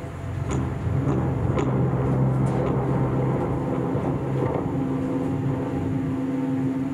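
Low rumbling drone from a live experimental music performance played by waving a cloth net in the air stream of electric fans. A steady low hum runs under a noisy rumble that swells about a second in, with a few light clicks over the first few seconds. A second, higher held tone joins about two-thirds of the way through.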